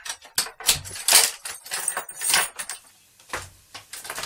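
A quick, irregular run of loud knocks, thuds and scrapes.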